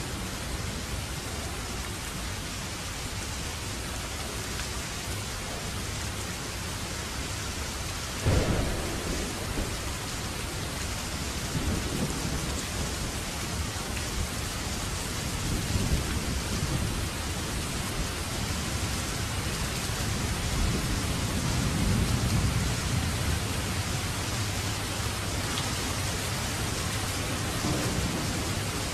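Steady rain falling, with several deep rumbles over it; the first starts suddenly about eight seconds in.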